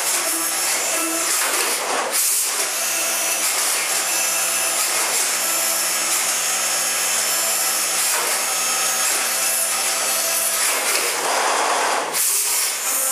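Brother M140X1 compact 5-axis machining center cutting a part under flood coolant: a steady spindle whine with several high tones over the hiss of coolant spray. It breaks off briefly about two seconds in, and a louder rush of noise comes near the end.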